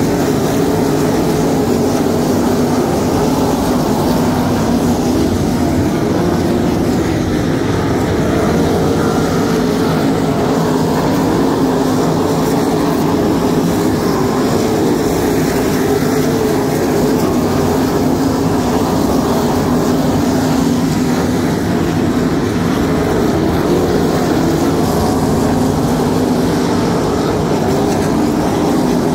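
A pack of 305 winged sprint cars racing on a dirt oval, their small-block V8 engines running together in a loud, steady, unbroken sound.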